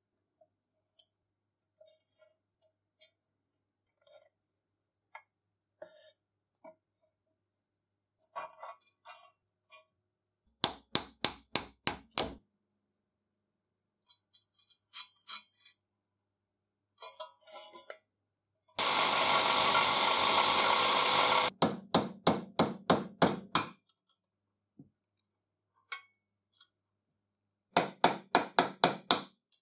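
Light clicks of small metal parts being handled, then runs of quick metal hammer taps, about four a second, on a pin punch driving out the peened pin of the lamp's hinge. Between the runs comes a steady rushing noise lasting about three seconds.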